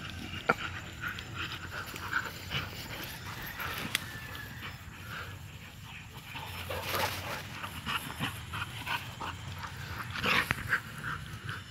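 Dogs making short, high play sounds while they chase each other, in a run of quick yelps, with louder bursts about seven seconds in and again near ten seconds. A sharp click comes about half a second in.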